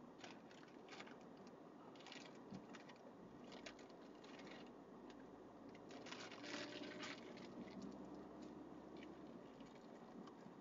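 Near silence: a faint hiss of road noise inside a moving car, with scattered light ticks and crackles.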